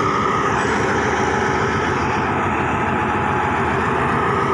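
Diesel locomotive of a Thai passenger train standing with its engine running steadily: an even low engine rumble with a steady whine above it.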